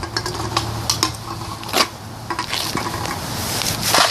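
Scattered light clicks, knocks and clinks from objects being handled. A louder burst of rustling noise comes near the end.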